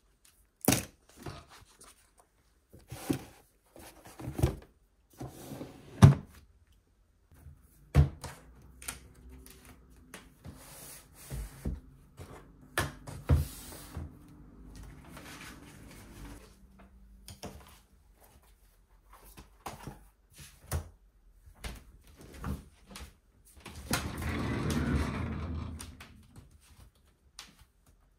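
Desk drawer sliding open and shut and objects being picked up and set down on a desktop: a series of separate knocks and clunks. Near the end comes a longer rubbing, rustling sound of a couple of seconds.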